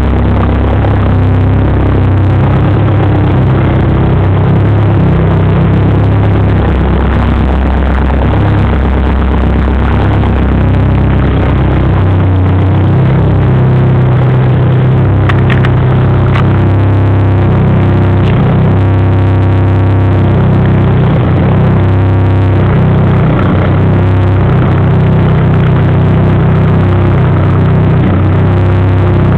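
Turbocharged Lancia Dedra 2.0 8-valve four-cylinder engine running at idle, loud and steady, its note shifting a little a few times.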